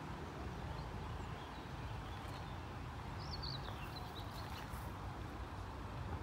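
A small bird chirping a few quick notes in the middle, over a steady low outdoor rumble.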